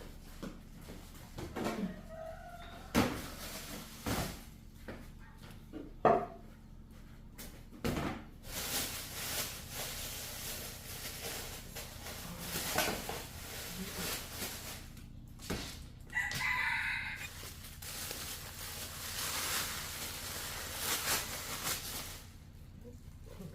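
A rooster crows once, about sixteen seconds in. Scattered sharp knocks and long stretches of rough hissing noise surround it; the two loudest knocks come a few seconds in.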